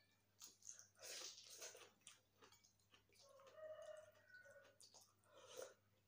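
Faint eating sounds: chewing and mouth noises, loudest about a second in. About three and a half seconds in, a short pitched animal call sounds in the background.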